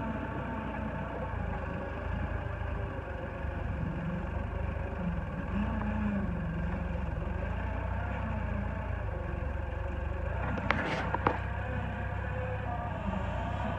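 Allis-Chalmers rough-terrain forklift engine running under load, its pitch rising and falling as it works against a heavy truck body. Two sharp metallic clanks come close together near the end.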